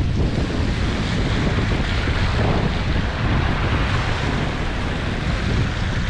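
Steady wind buffeting the microphone, mixed with the wash of sea waves on the shore.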